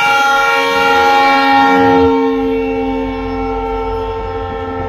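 Diesel locomotive horn sounding one long, loud blast, cutting off about five seconds in, over the low rumble of a passenger train rolling past close by.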